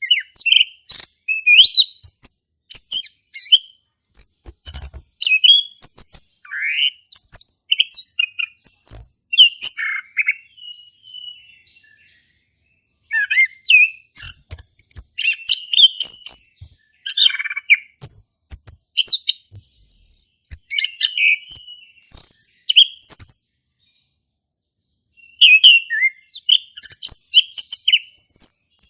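Male chestnut-capped thrush (anis kembang) in full song: long runs of quick, high, varied notes and slurred phrases, broken by two short pauses about 12 and 24 seconds in.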